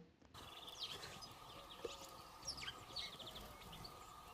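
Sparrow chirping: faint, short, high chirps in irregular clusters over steady background noise.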